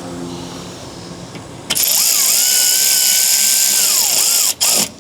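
Cordless drill/driver with a T27 Torx bit running a motorcycle seat bolt in: the motor whine speeds up, holds steady for about two seconds, then winds down.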